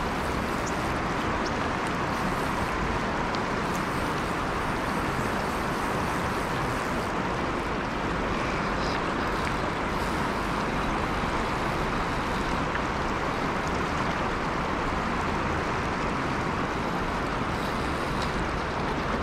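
Steady rush of a flowing river, an even noise that holds level throughout.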